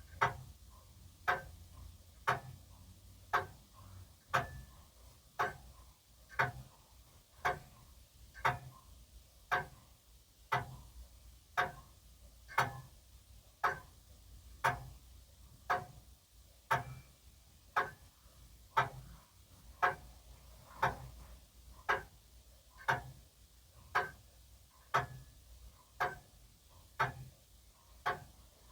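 Grandfather (longcase) clock ticking steadily, about one tick a second.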